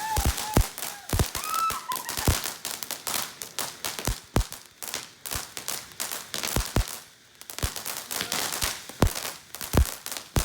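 Consumer fireworks going off: a rapid, irregular string of sharp pops and crackles of varying loudness, with a brief lull about seven seconds in.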